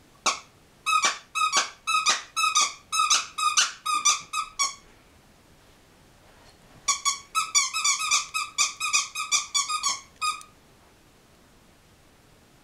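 A squeaky dog toy squeaked over and over as a Norwegian Lundehund chews it: two runs of about a dozen high squeaks each, roughly three a second, with a pause of about two seconds between them.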